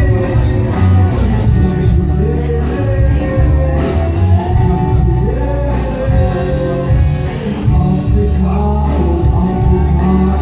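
Live band playing amplified music through a stage PA, with a singer over a heavy bass line.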